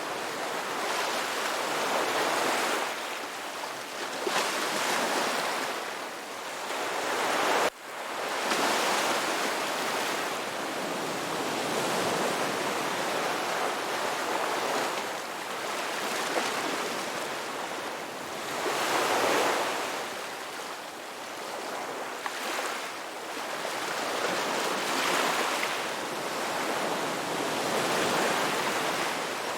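Ocean surf washing on a shore: a continuous rush that swells and eases every few seconds as waves break, with a momentary break in the sound about eight seconds in.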